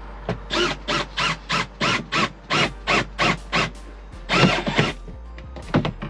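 Cordless drill-driver pulsed in short trigger bursts, about three a second, each one spinning up and down in pitch, then a single longer burst, driving screws into the door frame.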